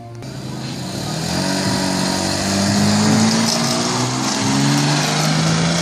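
Toyota Chaser JZX90's straight-six engine pulling away and driving past, getting louder toward the middle, with the engine note dropping about four seconds in. A steady rolling hiss of wheels on asphalt runs under it.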